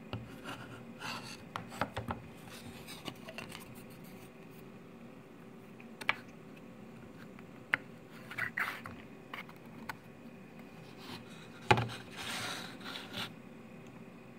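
A small pine box handled on a workbench: scattered light clicks, knocks and wood-on-wood scraping as its sliding wooden lid is moved, with the sharpest knock late on, followed by a longer scrape.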